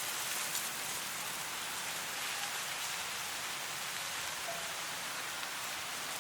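Wind blowing through tall dry grass: a steady rustling hiss.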